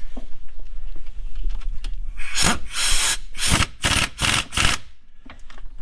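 Ratchet wrench running a wheel-hub mounting bolt in, in about five short rasping strokes after a couple of seconds of light clicks.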